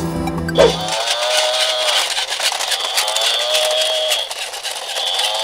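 Battery-operated walking toy cow sounding its electronic moo through a small tinny speaker, repeated about every two seconds over a steady high tone. Electronic intro music cuts off about a second in.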